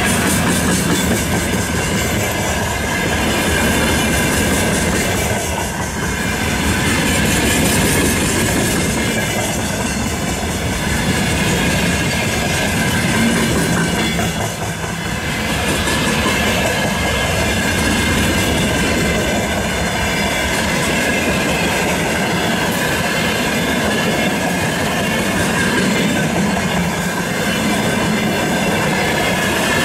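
Freight train wagons rolling past close by, open gondola cars and then tank cars: a steady rumble and clatter of steel wheels on the rails, with a steady high tone running through it and the loudness dipping slightly every few seconds as the cars go by.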